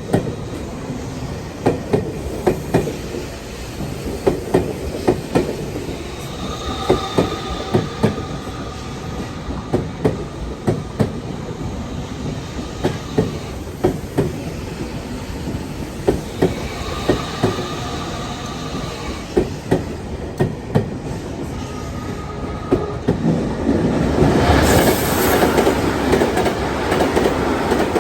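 Tokyu electric train rolling slowly past, its wheels clacking in pairs over the rail joints. Two brief high wheel squeals come in the middle, and near the end it grows louder with a rushing noise.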